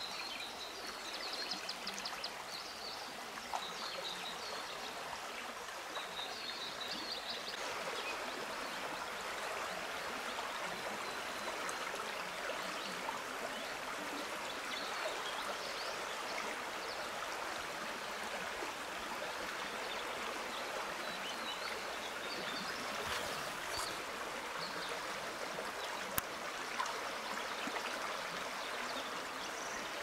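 Shallow forest stream running steadily over its bed, a constant trickling, with a few faint high chirps now and then.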